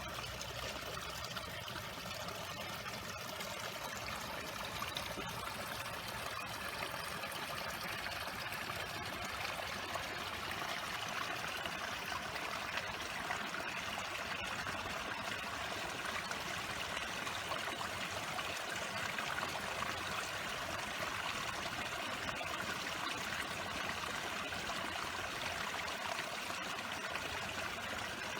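A stream running steadily: a continuous, even rush of flowing water.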